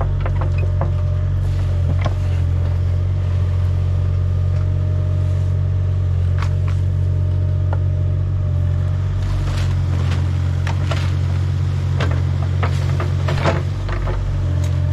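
Heavy digging machinery's engine running steadily, with scattered metallic knocks and clanks, thickest in the second half, as the ground is dug to find a buried oil tank.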